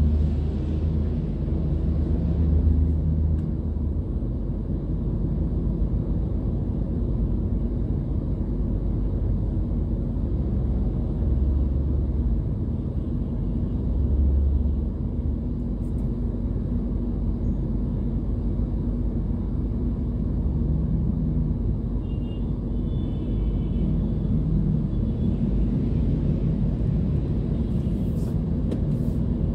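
Steady low rumble of a car's engine and road noise heard from inside the cabin, moving slowly in stop-and-go traffic.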